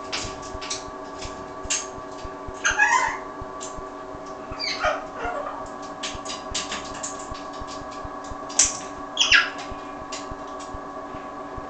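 Grey parrot mimicking a person coughing and hawking up phlegm: several short raspy coughs and throat-clearings with clicks between them, the loudest two close together about three-quarters of the way through.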